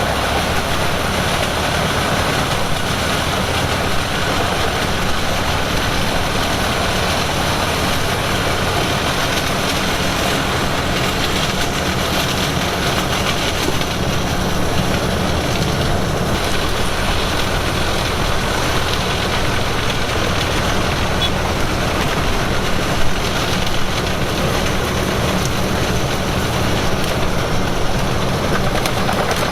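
Heavy diesel machinery running steadily: a continuous low engine drone under dense mechanical noise, with a couple of brief knocks about 23 and 24 seconds in.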